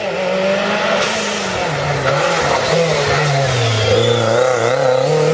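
Rally car engine running hard, its pitch sinking over several seconds as the revs drop, then climbing again near the end as it accelerates.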